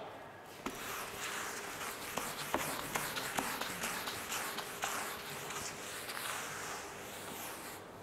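Whiteboard eraser being wiped across a whiteboard: a run of soft rubbing strokes, with a few light clicks and knocks in between.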